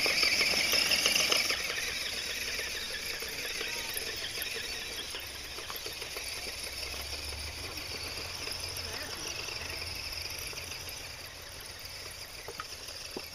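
Radio-controlled 4x4 truck's small electric motor and geared drivetrain whirring as it crawls over rough ground, louder in the first second or two.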